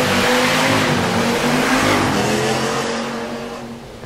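Modified car accelerating hard past, its engine note climbing, then fading over the last second as it pulls away.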